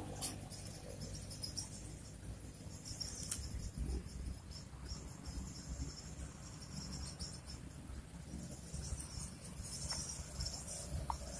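Steady high insect chirring, over a low rumble, with a couple of faint clicks near the start and about three seconds in.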